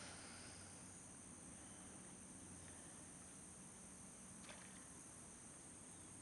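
Faint, steady high-pitched chorus of crickets, with one faint tick about four and a half seconds in.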